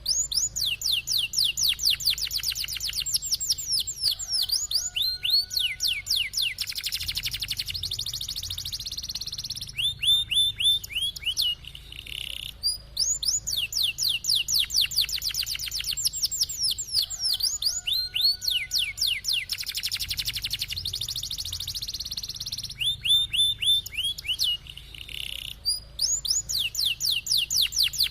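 Domestic canary singing: fast rolling trills of rapidly repeated high notes, alternating with sweeping whistled phrases. The same song sequence repeats about every 13 seconds, over a faint steady low hum.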